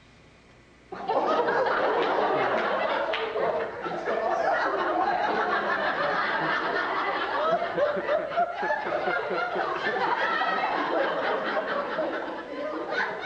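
Laughter that breaks out suddenly about a second in and keeps going.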